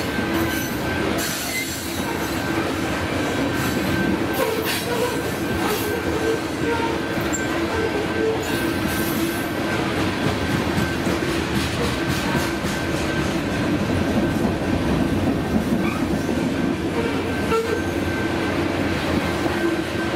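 Freight train of covered hopper cars rolling steadily past over a grade crossing. The wheels give a continuous rumble with irregular sharp clacks, and a thin, steady high-pitched whine runs over the top.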